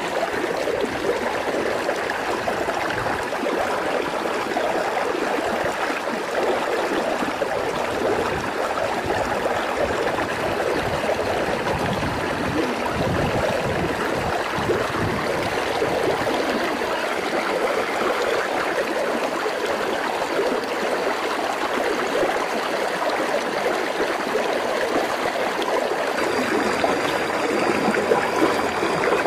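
Shallow rocky stream running steadily, a continuous babble of water over stones.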